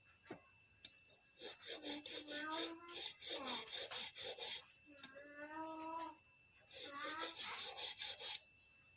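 Sandpaper rubbed quickly back and forth on a small replacement stopper part to take it down to size, in three bursts of rapid strokes with short pauses between.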